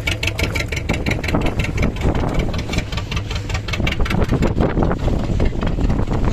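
Fishing boat's engine running steadily, an even rapid chugging of about eight beats a second over a low rumble.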